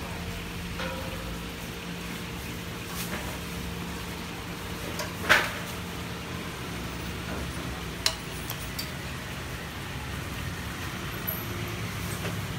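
Steady low machine hum with a sharp knock about five seconds in and a smaller click about three seconds later.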